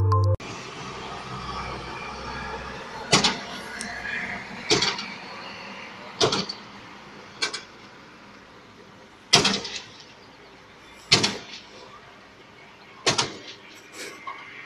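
Heavy blows on a car's bodywork, about nine sharp thuds one to two seconds apart, as a man beats the parked car.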